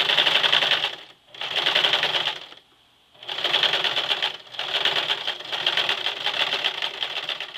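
Sewing machine stitching a zipper into jeans, running in three bursts of rapid stitches. It stops briefly about a second in and again for about half a second near three seconds, then runs on.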